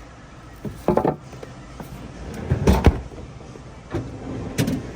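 A few knocks and thumps from a display refrigerator being opened and handled, the loudest a little past halfway.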